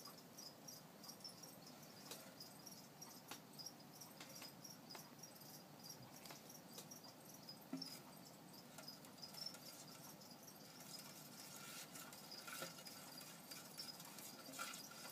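Near silence: faint room tone with a faint high ticking that repeats about three times a second, and a few soft taps and scrapes in the second half.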